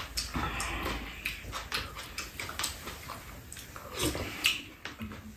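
Two people eating soupy curry and rice from bowls: slurping and chewing, with spoons tapping against ceramic bowls now and then, and a louder mouthful about four seconds in.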